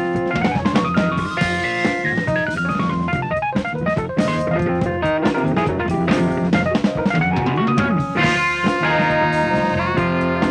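Jazz-fusion band playing an instrumental: a busy drum kit under fast melodic runs that climb and fall.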